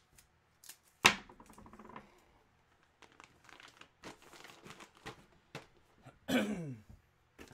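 Plastic packaging crinkling and rustling as a bagged jersey is handled, with a sharp knock about a second in.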